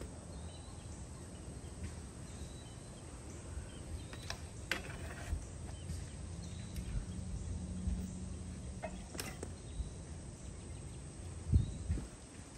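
BMX bike tyres rolling and scuffing on concrete during flatland tricks, with a low rumble, a few sharp taps, and one heavier thump near the end.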